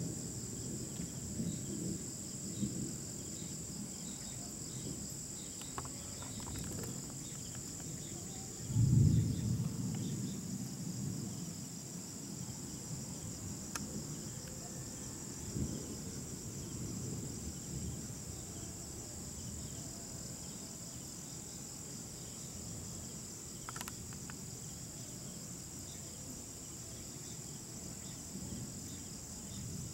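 Steady high-pitched chorus of night insects, with a brief low rumble about nine seconds in.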